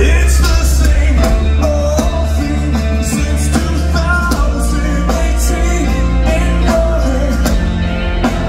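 Heavy rock band playing live at full volume, heard from the crowd: distorted electric guitars, bass and drums, with some singing.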